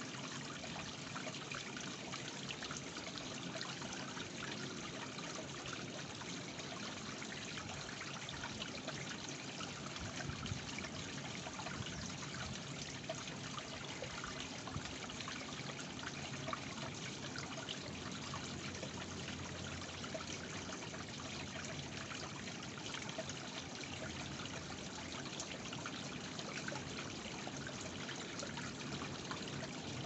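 Small stone garden waterfall trickling and splashing steadily into a pond.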